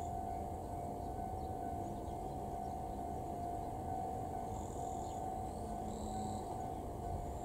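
JR 285 series electric train rolling slowly in with a low rumble, under a steady high-pitched tone that holds one pitch throughout.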